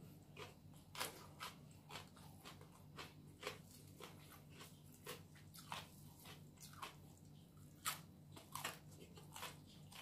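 Mouth chewing crispy fried chicken (ayam geprek): irregular sharp crunches, a couple a second, with the loudest crunch about eight seconds in. A faint steady low hum runs underneath.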